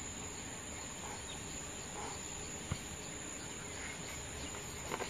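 Faint steady background hiss of a quiet room, with one soft click a little past the middle.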